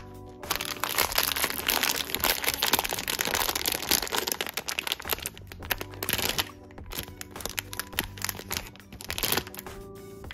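Crinkling and crackling of a foil blind-box pouch being torn open and handled by fingers: dense for the first several seconds, then in shorter bursts. Soft background music with steady tones plays underneath.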